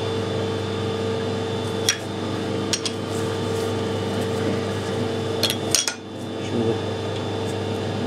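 A few sharp metallic clicks and clinks as a bronze plug is handled and released from a metal lathe chuck, over a steady mechanical hum.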